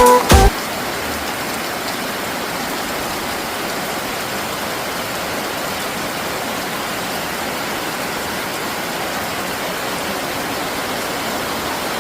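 Steady rain falling, an even, unbroken hiss. Electronic dance music cuts off about half a second in.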